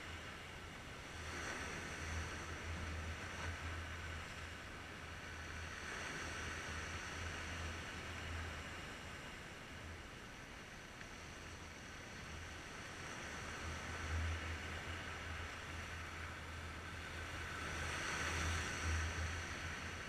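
Sea waves breaking and washing over shoreline rocks: a steady surf hiss that swells and eases as each wave comes in, loudest near the end.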